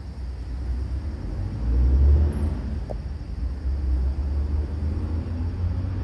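A low, uneven rumble that swells to its loudest about two seconds in, with a faint click about three seconds in.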